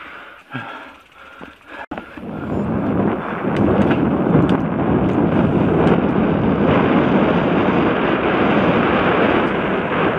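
Wind rushing over a helmet-mounted camera's microphone, mixed with the tyre and trail noise of a 29er hardtail mountain bike riding fast on dirt singletrack. The noise is low and patchy at first, then after a sharp click about two seconds in it swells and stays loud and steady.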